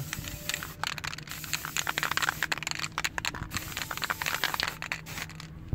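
Aerosol spray can spraying white paint onto a clear acrylic box: a hiss peppered with many rapid irregular clicks, starting about a second in and stopping near the end.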